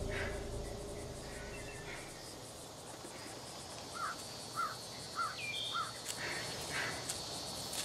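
Woodland ambience on a TV soundtrack: steady insect chirring with a bird chirping four times in quick succession midway. A low music drone fades out in the first two seconds.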